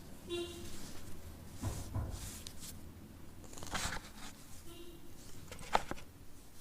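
A pressed block of powder being crushed, giving irregular crackly crunches as it crumbles, with one sharp snap near the end.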